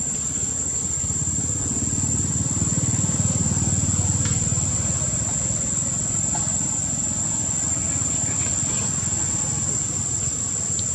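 Steady, high-pitched insect drone, unbroken throughout, over a low rumble that swells a couple of seconds in and then eases, with a few faint ticks.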